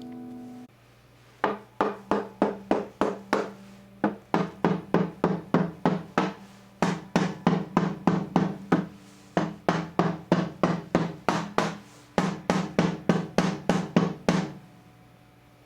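Knuckle taps on the body of a Yamaha acoustic guitar, about three a second in runs with short pauses, each tap setting off a brief woody ring from the body. Tapping like this is done to find a rattle; here the buzz is put down to a brace come loose inside the body.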